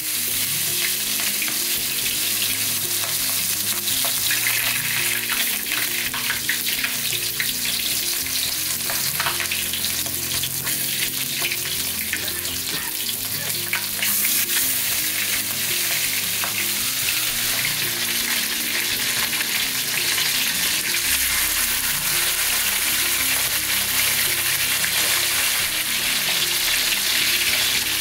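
Barracuda steaks frying in hot oil in a nonstick pan, a loud steady sizzle that flares up about four seconds in and again around halfway, as more pieces go into the oil.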